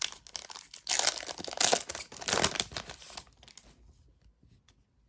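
Foil booster pack wrapper crinkling and tearing open for about three seconds, then only faint ticks of cards being handled.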